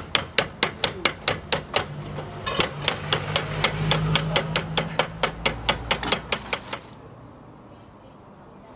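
Small hammer tapping on a tiled roof in quick, even strokes, about four a second. The taps pause briefly about two seconds in, then run on and stop about seven seconds in.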